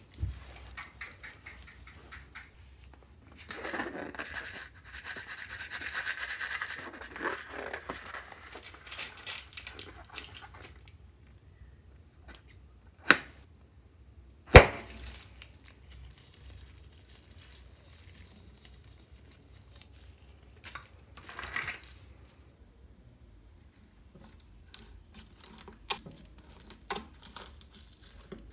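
Scissors snipping open a rubber stress ball: two sharp snaps about a second and a half apart, with stretches of rubbery rubbing and crinkling before them, and light clicks near the end as a hand presses into bead-covered slime.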